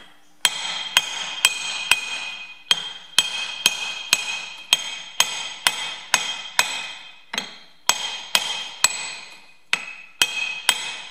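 Ball-pein hammer tapping on a steel pipe used as a drift, about two strikes a second, each strike leaving a short metallic ring. The pipe is driving a Sure Seal half-shaft seal down over a Ferguson TE20 rear axle until it seats evenly against the bearing.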